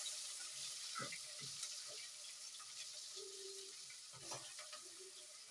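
Hot cooking oil sizzling in a pot around freshly added chopped ingredients, a steady hiss that slowly dies down as they fry. A few faint short voice sounds come through over it.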